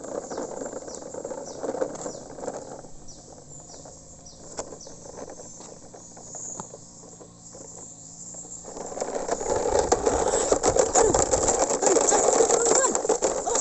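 A plastic toy dump truck rolling along rough ground, its plastic wheels and body rattling and crunching over grit. It gets much louder and denser about nine seconds in.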